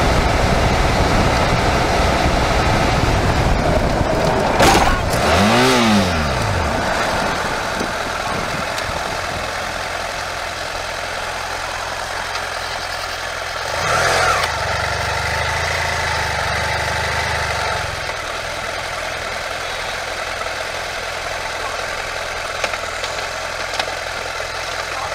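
Car's engine and road noise heard from inside the cabin, steady throughout. There is a sharp knock about five seconds in and a louder, rougher low rumble from about fourteen to eighteen seconds.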